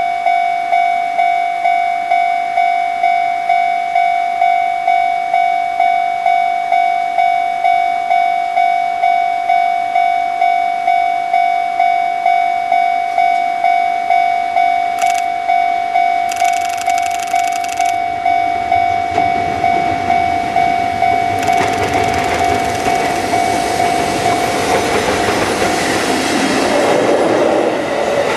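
A railway level-crossing bell dinging in an even rhythm. From about twenty seconds in, a freight train hauled by an EF65 electric locomotive approaches and passes with a string of unpowered new subway cars. Its wheel and running noise rises to the loudest sound near the end.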